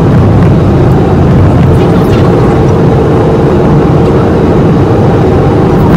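Loud, steady running noise of a vehicle in motion: a dense low rumble with a steady engine tone above it.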